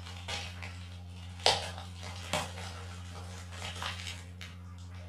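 Bubble wrap and cardboard packaging rustling and crinkling as items are unpacked by hand, with two sharper knocks about one and a half and two and a half seconds in, over a steady low hum.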